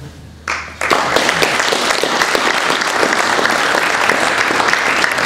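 Audience applauding, a dense patter of many hands clapping that starts abruptly about a second in and keeps up steadily.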